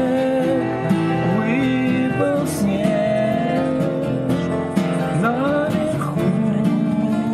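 Live acoustic band playing a song: acoustic guitars strummed over a bass guitar line, steady and unbroken.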